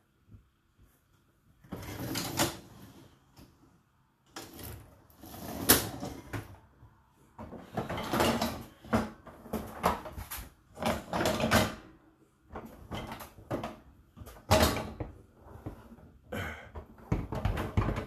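Dishwasher racks rattling on their rails while pots, pans and dishes in them clatter, in irregular bursts of a second or less after a quiet first second or so.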